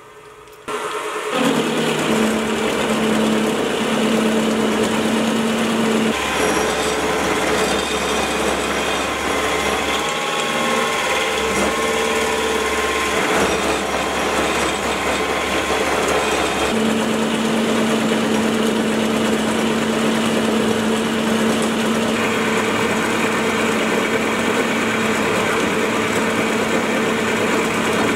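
Sieg X2.7 mini milling machine side-milling a steel bar with a roughing end mill: a steady cutting noise over the spindle motor's hum. The sound changes abruptly every few seconds where separate cuts are spliced together, first without and then with a stiffening plate on the column, the later cuts at a 3 mm width of cut that pushes the motor to its limit.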